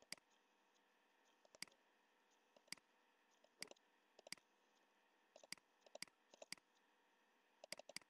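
Faint computer mouse clicks: about ten short, sharp clicks spaced irregularly, a few coming in quick pairs.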